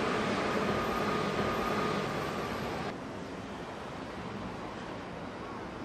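Distant train running on the tracks: a steady rumble with a faint whine. About three seconds in it drops suddenly to a quieter steady background hiss.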